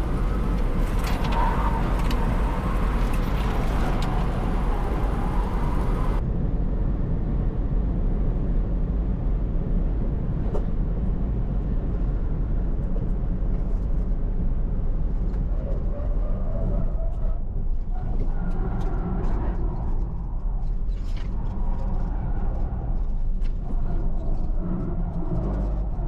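Onboard sound of an electric car lapping a track at speed: a loud, steady rumble of tyre, road and wind noise with no engine note. About six seconds in the sound changes abruptly and turns duller, as from a switch to a different recording.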